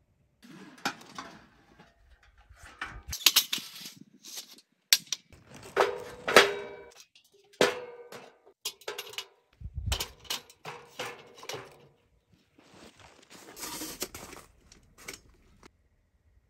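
Irregular knocks, scrapes and clatter of wood being handled in a steel fire pit, with a clank that rings briefly about six seconds in.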